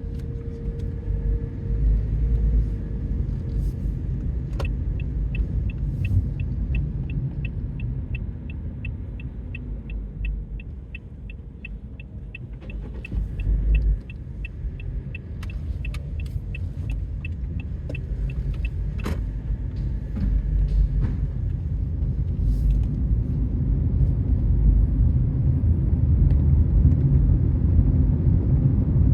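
Car interior with a steady low rumble from the car being driven. For about fourteen seconds in the middle, an indicator ticks evenly about three times a second, as the car signals to turn.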